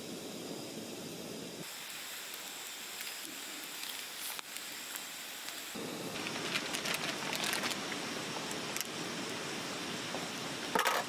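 Portable gas canister stove burning with a steady hissing rush under a cooking pot, with scattered crackles. The rush drops back for a few seconds about two seconds in, and a couple of sharp knocks come near the end.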